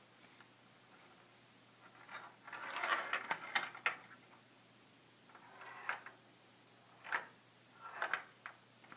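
Small steel ball rolling and clicking through the plastic tracks of a Perplexus Epic maze sphere as it is tilted, in several short rattling runs; the longest comes about two to four seconds in, and shorter ones follow later.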